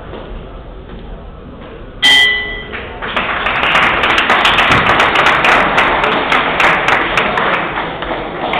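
A boxing ring bell is struck once about two seconds in and rings briefly with two clear tones. Then an audience starts clapping and keeps on applauding.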